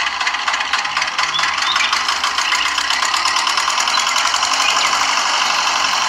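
Miniature model diesel engine running steadily with a fast, even ticking rhythm, turning a rubber-band belt that drives a toy water pump.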